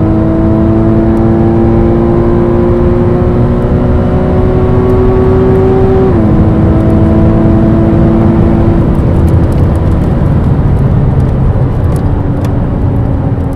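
Porsche Boxster GTS's 3.4-litre naturally aspirated flat-six at full throttle in fourth gear, heard from inside the cabin, its pitch climbing steadily toward about 7,000 rpm. About six seconds in, the PDK gearbox upshifts into fifth and the pitch drops sharply. The note then holds at lower revs and weakens as the throttle comes off and the car slows from just over 210 km/h.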